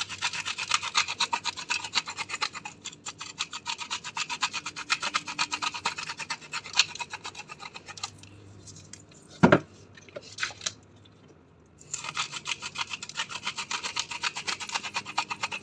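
Hand-twisted salt grinder crushing pink salt crystals: a rapid run of rasping clicks, stopping about eight seconds in. A single sharp knock follows, then the grinding starts again for the last few seconds.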